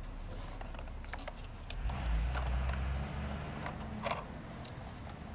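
Plastic toy fire engine being handled and turned over, with scattered clicks and knocks of plastic, and a low rumble from about two to three seconds in.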